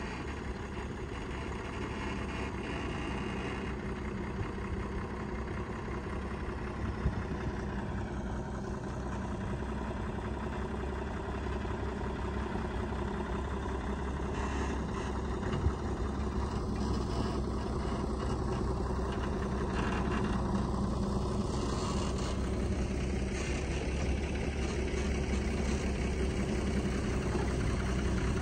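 Heavy truck's diesel engine running at low speed as the tanker semi-trailer rig is driven slowly through a manoeuvre, growing gradually louder as it comes closer. Two short sharp clicks partway through.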